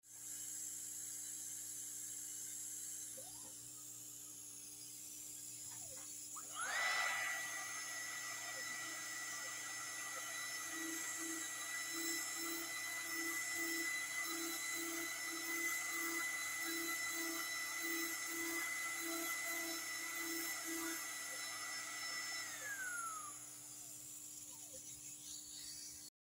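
Milling machine spindle spinning up about a quarter of the way in and running with a steady high whine while a small end mill cuts a screwdriver slot in a small threaded part, then winding down near the end. Through the middle there is a faint pulsing about twice a second.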